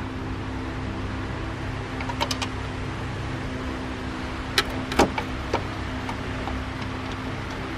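A steady low mechanical hum with a few held pitches, broken by a handful of short sharp clicks about two seconds in and again around five seconds in.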